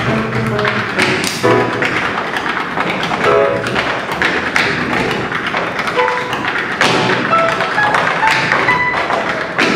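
Tap dancing: quick, irregular shoe taps and heavier stamps on the stage floor over instrumental music.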